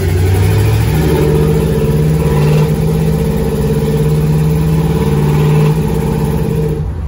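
1969 Oldsmobile Cutlass's Rocket 350 V8 pulling under acceleration, heard from inside the cabin. Its pitch climbs a little about a second in, then holds steady, and the engine note drops away suddenly near the end as the throttle comes off.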